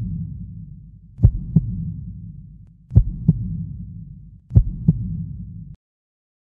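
Heartbeat sound effect in the dance track: deep double thumps, three beats about a second and a half apart, each trailing a low rumble, cutting off near the end.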